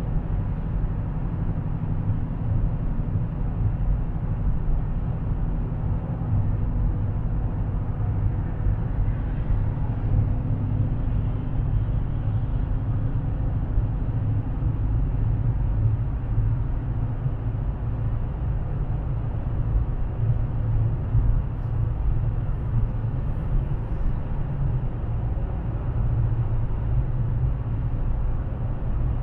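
Steady low drone of a Dodge Challenger cruising at highway speed, heard from inside the cabin: engine and exhaust hum under tyre and road noise.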